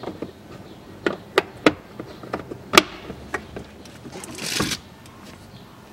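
Several sharp plastic clicks as the glovebox latch and damper of a Hyundai ix35 are snapped back into place by hand, followed a little after four seconds in by a short scraping of plastic as the glovebox lid is moved.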